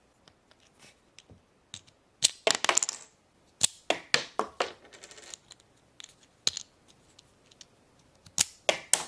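Small hard plastic clicks and clatters as a toy disc launcher is handled, coming in scattered clusters about two seconds in, around four seconds and near the end.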